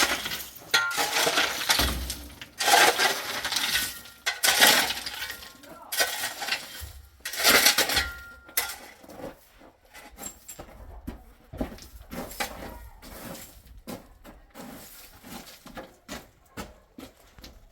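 A hand tool scraping through gritty cement mortar in about seven long strokes, then lighter clinks and taps of grit and stones for the rest.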